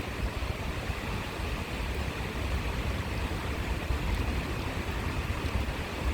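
Steady rushing of a flowing stream, with wind buffeting the microphone as a low, uneven rumble.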